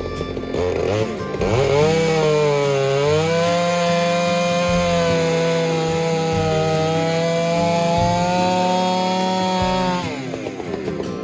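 Two-stroke chainsaw engine, revved back up about two seconds in and held at high speed as it cuts into a fir log, the pitch wavering slightly under load, then dropping back toward idle about ten seconds in.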